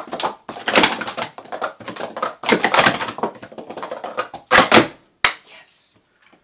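Plastic sport-stacking cups clattering in a fast run of stacking and downstacking on a stack mat. The clatter ends with one sharp tap about five seconds in, as the hands come down on the mat's timer pad.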